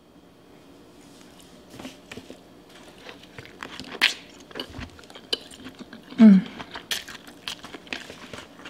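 Mouth sounds of a person biting and chewing sauce-covered seafood boil food: soft wet clicks and smacks, with a sharper bite about four seconds in and a short hum about six seconds in.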